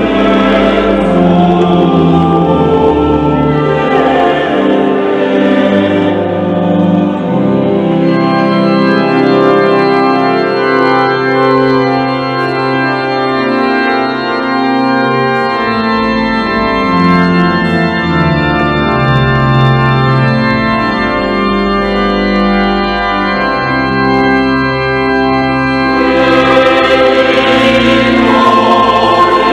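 Choir singing in the first few seconds, then an organ playing slow, held chords over a bass line that moves in steps. The sound grows fuller near the end.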